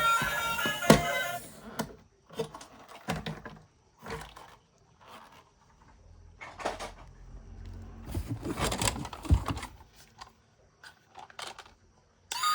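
Toys and packaging being handled by hand: scattered clicks, knocks and rustles. Background music stops about a second and a half in and comes back near the end.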